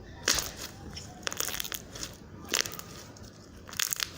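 Homemade slime being pressed and worked, letting out sharp popping, crackling snaps as trapped air bursts: the slime's 'popping' sound. The pops come in four short clusters.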